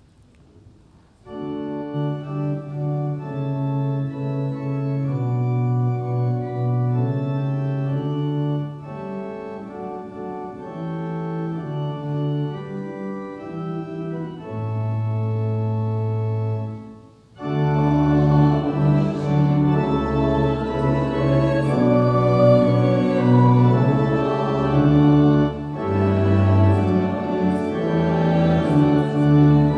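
Organ playing sustained chords of a hymn tune, starting about a second in. After a brief break near the middle it starts again, fuller, with the congregation singing the canticle along with it.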